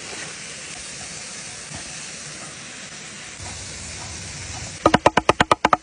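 A small waterfall rushing steadily. Near the end a cleaver starts chopping rapidly on a wooden block, mincing beef, about ten knocking strokes a second.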